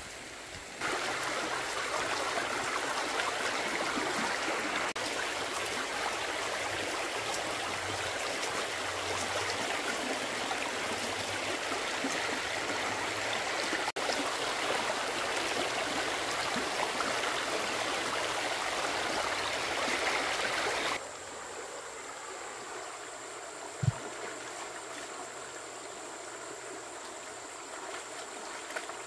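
Water running steadily for about twenty seconds, then cutting off suddenly; a single sharp knock follows a few seconds later.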